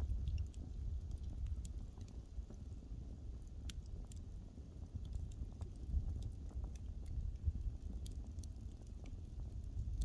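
Wood fire burning, with scattered crackles and small pops over a low, steady rumble; one sharper pop about four seconds in.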